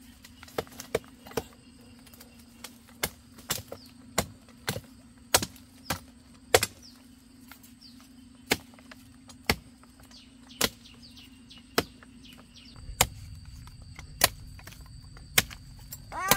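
A blade chopping bamboo shoots: sharp, short strikes about once a second, irregular, with a brief pause midway.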